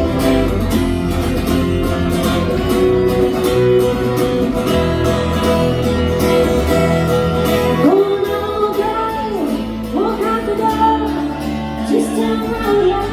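Live band music: guitars and bass playing loudly, with a melody line that bends in pitch coming in about eight seconds in.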